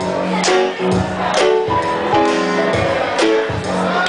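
Live band music: sustained keyboard chords over a steady beat of about two strokes a second.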